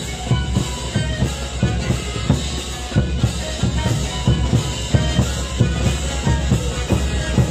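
Live comparsa band playing in the open: large bass drums beaten in a steady march beat with clashing cymbals, under a held melody from rows of panpipes (sikus).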